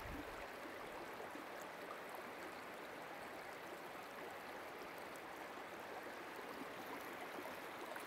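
Shallow, clear river water running over and between rocks in a riffle: a steady, fairly soft rush and burble.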